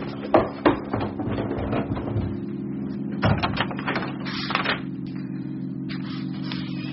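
Footsteps on a staircase near the start, then scattered snips and clicks of scissors cutting paper, over a low steady drone.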